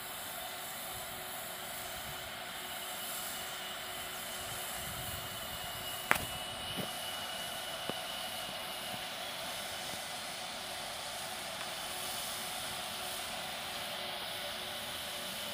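WAP-7 electric locomotive approaching with a train, giving a steady hiss and hum. A single sharp click about six seconds in, followed by two fainter clicks.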